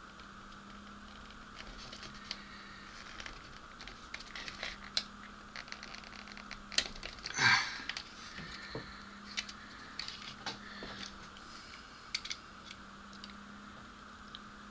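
Small plastic model-kit parts being handled and pressed into place by hand: scattered light clicks and taps, with one louder scrape about halfway through. A steady low hum runs underneath.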